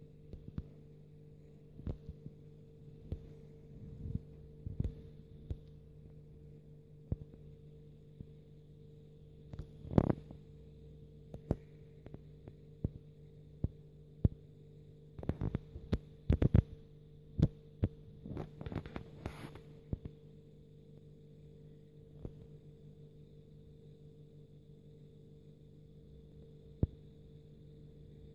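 Steady electrical hum from mains-powered aquarium equipment, with irregular sharp clicks and knocks scattered over it, bunched most thickly in the middle of the stretch.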